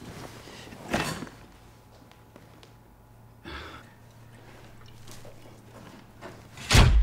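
Handling noise of a person moving about with bags and a toolbox: a few separate knocks and rustles, about a second in and again at three and a half seconds, over quiet room tone. Near the end a loud swish comes in as music starts.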